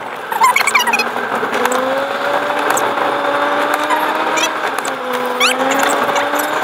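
Car engine and tyre noise heard from inside the cabin while driving, the engine note rising gently with the revs, dropping briefly about five seconds in, then climbing again. Occasional short high squeaks and clicks come over it.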